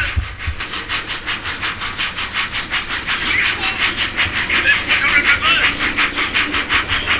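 Sound-fitted model steam locomotive, its speaker playing steady steam exhaust chuffs at about four a second as the model runs.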